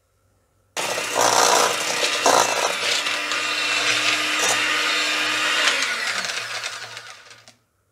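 Shami electric hand mixer switching on about a second in and running steadily with a whine, its beaters churning butter, sugar and egg yolks in an aluminium bowl, then fading out near the end.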